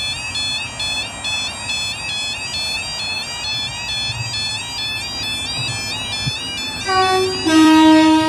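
UK level crossing yodel alarm warbling rapidly and continuously, sounding as the road lights go from amber to flashing red to warn of an approaching train. Near the end a loud two-note horn sounds over it, a short higher note and then a held lower one.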